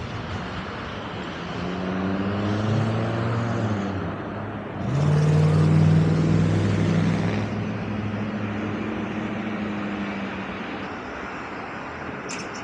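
Extreme Bull Commander GT Pro electric unicycle riding on the street: the hub motor hums over tyre and road noise, its pitch rising and falling with speed. It is loudest from about five seconds in, then eases off. A brief click comes near the end.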